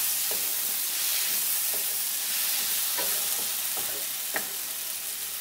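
Potato pieces and masala sizzling in oil in a nonstick kadai, stirred with a metal spatula that scrapes and knocks against the pan several times.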